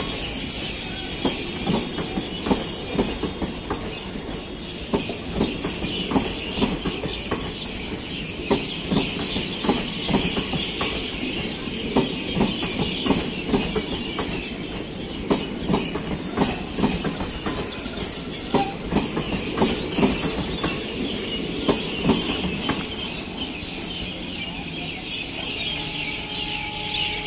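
Indian Railways passenger coaches rolling past at speed. Their wheels clatter over the rail joints in an uneven clickety-clack over a steady rolling hiss. The clatter stops about 23 seconds in as the last coach passes, leaving the hiss.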